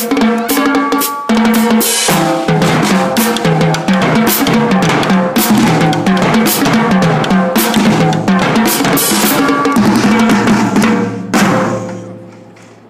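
Marching drumline playing a fast cadence: rapid snare strokes and rimshots over tuned drums stepping through pitches. It ends on one big unison hit about eleven seconds in, which rings out and fades.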